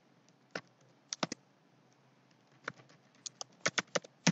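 Computer keyboard keystrokes: about a dozen separate key clicks at uneven spacing, typing a terminal command, with a quicker run of keys near the end.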